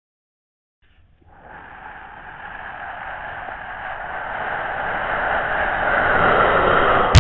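Silence for about a second, then a steady rushing noise with no clear pitch that swells steadily louder to the end.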